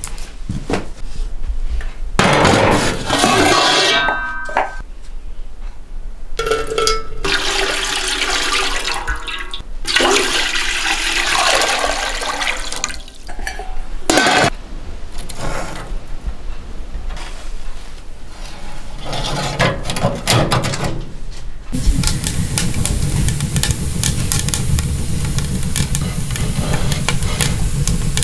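Metal knocks, scrapes and clinks from a round wood-burning stove and a steel pot being set on it, mixed with stretches of rushing, water-like noise. About three-quarters of the way through, a steady rushing noise takes over.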